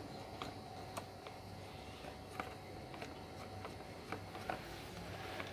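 Faint scattered light clicks and taps of hands handling wiring and metal fittings on a pump, over a low steady hum.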